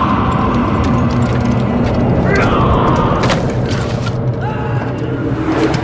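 Battle sound effects: a dense din of rattling gunfire and sharp cracks, busiest about three seconds in, over a low steady hum.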